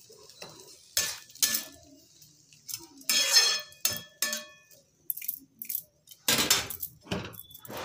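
Metal spatula scraping and clinking against a black kadai as thick brinjal curry is stirred, in irregular strokes; the longest scrape comes about three seconds in and another loud run just after six seconds.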